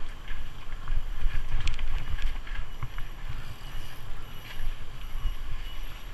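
Mountain bike riding down a dirt singletrack: wind buffeting the action-camera microphone as a low rumble, with the tyres rolling over dirt and leaves and the bike clicking and rattling over bumps.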